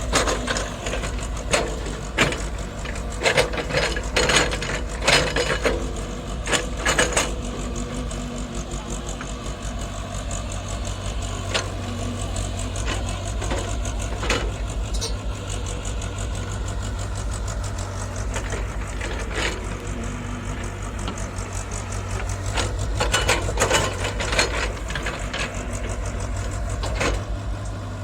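JCB JS81 excavator's diesel engine running steadily under work, with bursts of sharp clanks and knocks from the bucket striking and moving rock, about a second in, again around the middle, and near the end.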